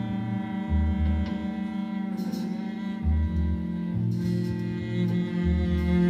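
Live instrumental band music: a slow figure of low bass notes repeats under a steady held drone. Brighter, higher tones join near the end.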